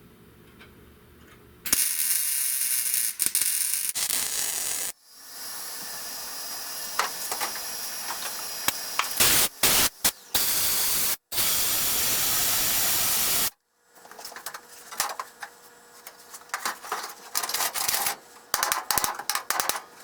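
Welding arc on sheet steel, sizzling and crackling in runs: a short bead about two seconds in, a longer one of about eight seconds, then short, spitting bursts toward the end. This is the new patch being welded into a rusted window channel.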